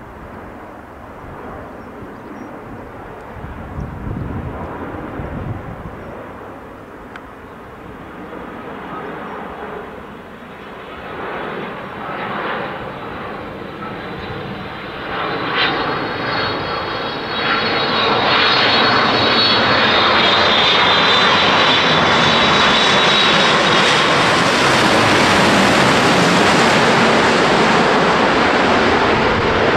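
Boeing 787 twin-engine jetliner flying a low pass, its engine noise growing steadily louder and fullest over the last third. A high whine rises in pitch through the middle.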